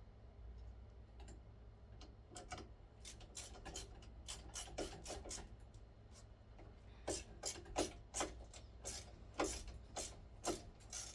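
A screw being driven by hand into a ceiling fan's metal fitting: a string of irregular scraping clicks from the screw and screwdriver, which grow louder and closer together in the second half.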